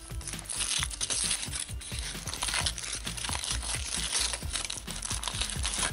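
Thin foil wrapper crinkling and crackling without a break as it is peeled off a milk chocolate surprise egg.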